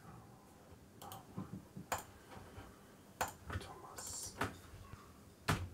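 A handful of faint, scattered clicks and knocks, spread unevenly over a few seconds, over a low background murmur.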